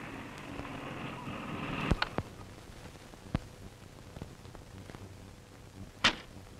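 A car's engine and tyres as it pulls up, stopping about two seconds in with a couple of clicks. A single sharp knock comes near the end.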